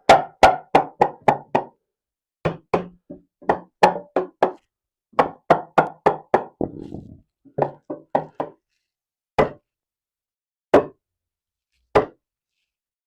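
Hammer strikes on 2x6 lumber, knocking a wooden cross brace into place in the frame. The strikes come in quick runs of several blows, about three or four a second, with pauses between the runs, then three single blows near the end.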